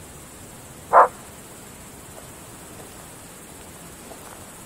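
A single short bark from a Groenendael Belgian Shepherd dog about a second in, over a faint steady high hiss of night insects.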